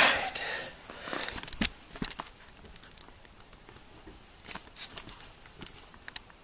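Scattered light clicks, taps and scuffs on a concrete garage floor: footsteps and handling noise, with a louder scuff fading in the first half second and a few sharper taps later on.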